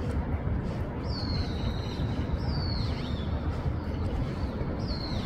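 Street ambience: a steady low rumble of distant traffic, with a bird calling three times in high, falling whistles.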